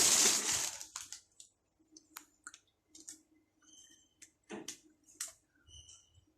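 A loud rustle of plastic dies away in the first second. Then come scattered small clicks and taps of plastic printer parts being handled by hand.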